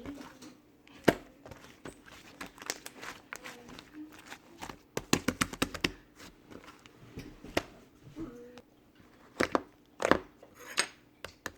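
Slime being squeezed and pressed by hand, giving irregular wet clicks and pops, with a quick cluster about five seconds in and louder pops near the end.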